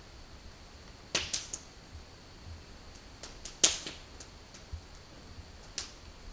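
A few sharp snaps or clicks at uneven intervals, the loudest about three and a half seconds in, over a faint steady high-pitched tone.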